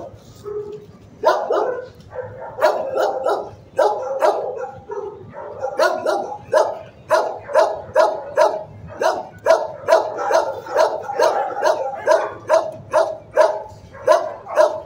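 Shelter dogs barking over and over in a steady run of sharp barks, about two a second, after a brief lull near the start.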